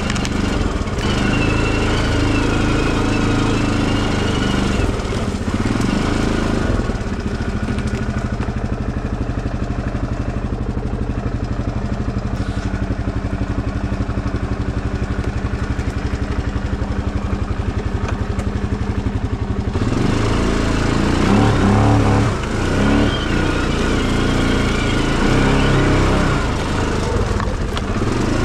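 A small tractor engine running steadily. It settles to a lower, even note for about thirteen seconds in the middle, then picks up and gets busier again near the end.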